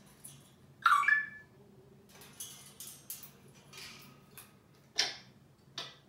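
African grey parrot in its wire cage: a short squawk about a second in, then a string of short scratchy and clicking sounds as it moves about the cage, with a sharper one about five seconds in.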